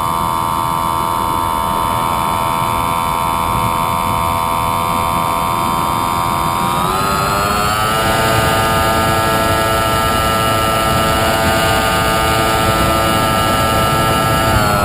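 Model airplane's motor and propeller whining steadily over a rush of air noise. About seven seconds in, the pitch climbs over a second or so and holds higher. It starts to drop again at the very end.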